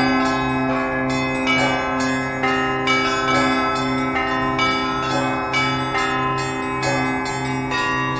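Russian Orthodox church bells rung by a bell-ringer: the smaller bells strike in a quick, continuous pattern, overlapping in their ringing, over the steady, pulsing hum of the large bells.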